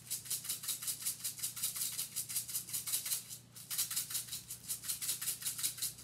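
Sprinkles rattling inside a small sprinkle container shaken hard over a treat, about six shakes a second with a brief pause about halfway. The sprinkles are stuck and won't pour out.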